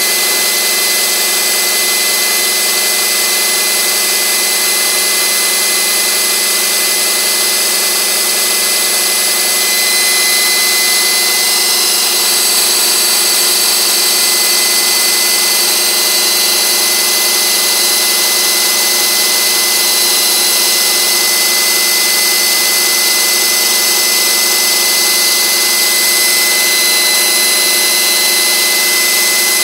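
Model helicopter's electric motor and Vario five-blade rotor head spinning at a steady speed under power, a continuous high whine with a rushing hiss, a little louder from about ten seconds in.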